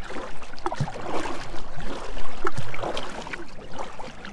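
Canoe paddle strokes against the current: water splashing and dripping off the blade in short plinks, with a few light knocks.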